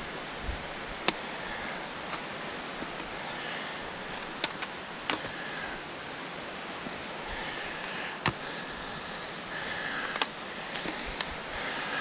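Footsteps of a hiker on a stony, leaf-strewn mountain path, soft scuffs with a few sharp clicks of stones or twigs underfoot, over a steady rushing hiss.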